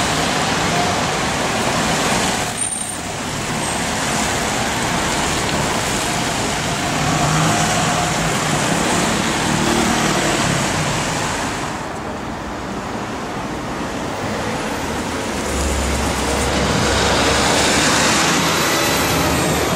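Dense city street traffic, with the 6.2-litre V8 of a Mercedes-Benz C63 AMG Black Series on an aftermarket MHP exhaust running at low speed in the traffic. A double-decker bus passes close by near the end.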